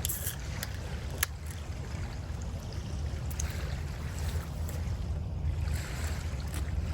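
Beach wind buffeting the microphone, a steady low rumble with surf hiss behind it, and a few sharp clicks, the loudest about a second in.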